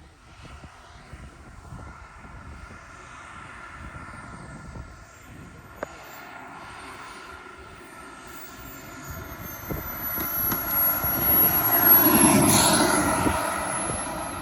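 Model jet turbine (KingTech K85 G2 in a Boomerang RC Ranger) flying overhead: a high turbine whine that swells into a loud pass-by about twelve seconds in, then fades away.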